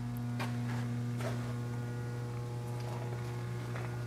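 Steady electrical mains hum, one low tone with overtones, holding level throughout, with a few faint clicks.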